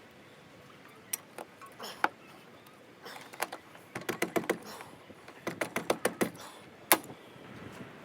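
A series of sharp clicks and knocks, some single and some in quick runs of several, with the loudest single click near the end.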